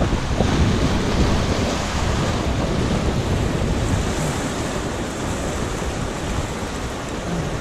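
River whitewater rushing and splashing around an inflatable raft as it runs a rapid, easing a little toward the end.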